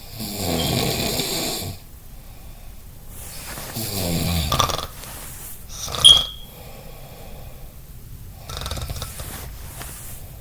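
Someone asleep snoring, with a long rasping snore every few seconds, three in all, the last one weaker. About six seconds in comes a brief, sharp, louder sound with a high whistle in it, the loudest moment.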